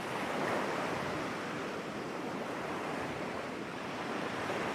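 Ocean-surf sound effect: a steady wash of waves, swelling and easing gently in loudness.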